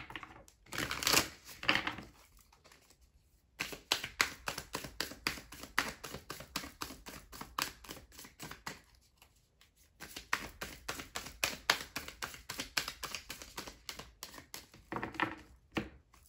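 A tarot deck being shuffled by hand: long runs of rapid card clicks and flicks, with a short break of about a second in the middle.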